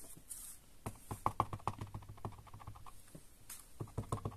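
Rapid light taps of an acrylic stamp block against an ink pad, inking a rubber stamp, in two quick runs: one starting about a second in and another near the end.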